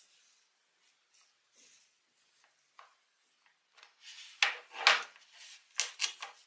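Hands opening and handling a toy set's packaging and pieces: scattered faint clicks and rubs, then several louder sharp scraping and knocking strokes in the second half.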